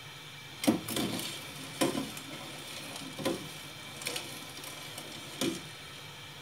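Metal spoon stirring water in a stainless steel pot, clinking and scraping against the pot about six times.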